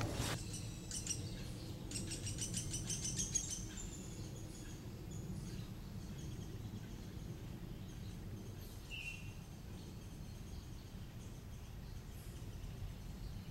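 A songbird singing a fast, high trill of rapidly repeated notes for about a second and a half, starting about two seconds in, then a single short call near nine seconds, over a steady low background rumble.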